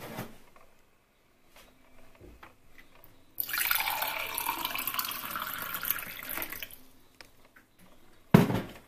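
Water poured from a jug into a drinking glass for about three seconds, starting suddenly and tailing off as the pour ends. A few light handling clicks come before it, and there is a single sharp, loud knock near the end.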